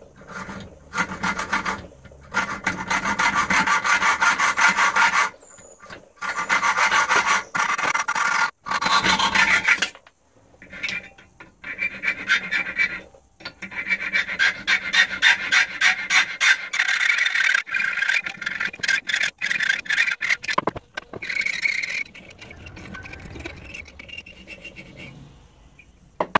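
Steel tyre lever clamped in a bench vise being shaped by hand with a metal file, cut down and its end rounded off. Runs of quick scraping strokes with short pauses between them, growing quieter near the end.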